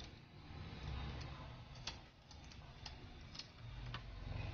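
Large kitchen scissors snipping the fins off a whole fish. The blades close in a few sharp clicks, about five of them, bunched in the middle, over a faint steady low hum.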